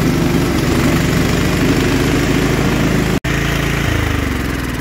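Scotts riding lawn tractor's small gasoline engine running steadily after a tune-up, no longer misfiring: running a lot better now. There is a momentary dropout about three seconds in, and the engine note shifts lower a moment later.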